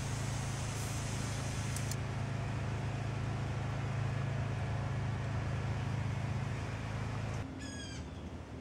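Steady low hum with an even hiss of background noise. About seven seconds in it drops to a quieter background, and a short high-pitched call of a few quick falling notes sounds.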